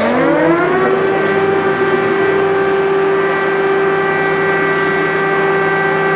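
Air-raid siren winding up, its pitch rising through the first second, then holding one steady tone.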